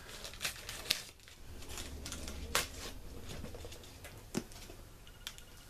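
Cardboard shipping box being cut open: a blade scraping and slicing through packing tape and cardboard, with irregular clicks, tearing and one sharper snap about two and a half seconds in.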